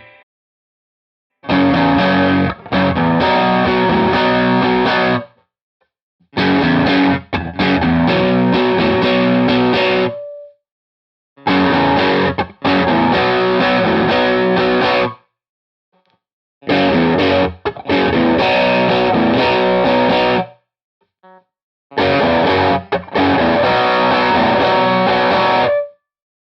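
Paragram Continua 003 electric guitar played through a GarageBand amp simulation, in five phrases of about four seconds each. Each phrase stops dead into a pause of about a second.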